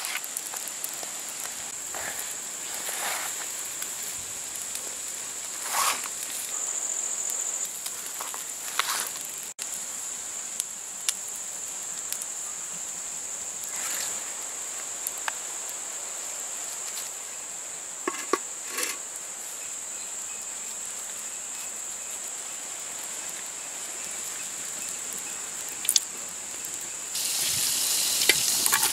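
Insects chirring in one steady high tone, with scattered light knocks and clicks. Near the end, sliced onions are tipped into hot oil in a clay pot and start sizzling.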